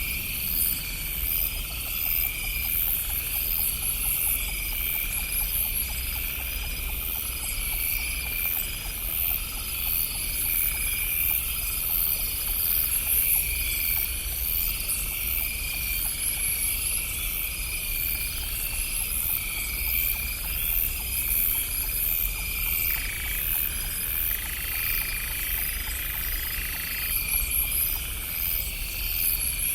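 Night chorus of frogs and insects: pulsed calls repeating about once a second over a steady high trill, with a low rumble underneath. A steady single tone comes in for about four seconds in the last third.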